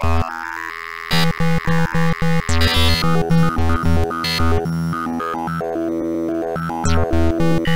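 Electronic background music with synthesizer tones over a steady bass beat; the beat drops out for a few seconds and comes back.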